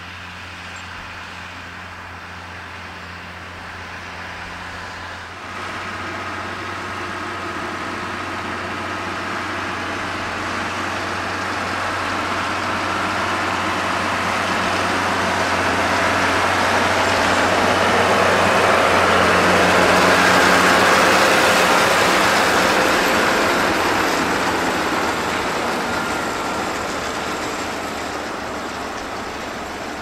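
New Holland 8360 tractor's six-cylinder diesel running steadily while pulling a working Kuhn round baler, its pickup and rotor feeding in cut grass. The sound grows louder as the machine comes close, loudest about two-thirds of the way through, then eases off.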